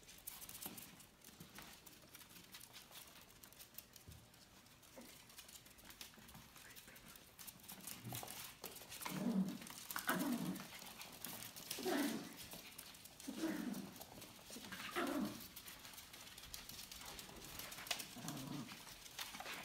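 Small animals' claws clicking and skittering on a laminate floor as a Yorkie puppy and ferrets scramble and tussle, with several short vocal sounds from about halfway in.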